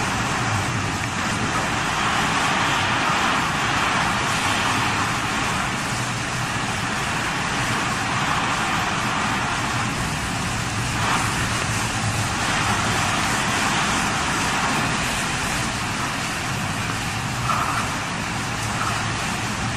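Typhoon wind driving rain and sea spray: a loud, steady rushing noise with a low rumble underneath, rising and falling slightly in gusts.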